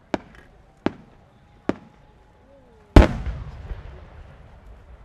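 Three sharp firework reports less than a second apart. About three seconds in comes the much louder boom of a large aerial shell bursting, its low rumbling tail fading slowly away.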